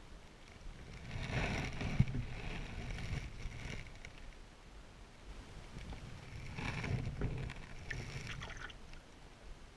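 Canoe paddle strokes: two pulls through the water about five seconds apart, each a swirl and splash, with a sharp knock during the first.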